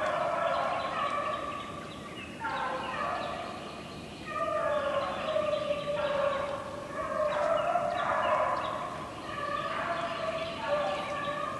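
A pack of rabbit-hunting dogs baying in chorus out in the woods, several voices overlapping, easing off briefly a couple of times. This is the sound of the dogs running a swamp rabbit's trail.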